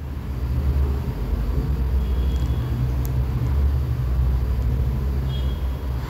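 Steady low rumble of a car's engine and road noise, heard from inside the moving car.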